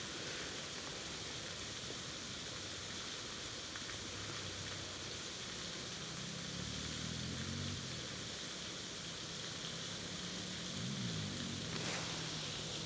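Steady soft outdoor hiss, with the faint low hum of a distant engine swelling and fading twice in the second half, and a small click near the end.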